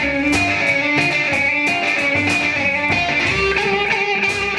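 Band music led by an electric guitar playing held lead notes that step from pitch to pitch, over a steady beat.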